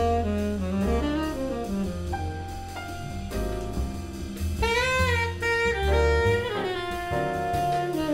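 Tenor saxophone playing a melodic jazz line of held notes and moving phrases, backed by double bass, piano and drum kit in a live jazz quartet.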